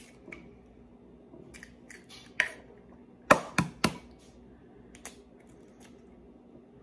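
Egg being cracked: three sharp taps of the shell against a hard edge in quick succession a little past three seconds in, with a few fainter clicks of shell before and after.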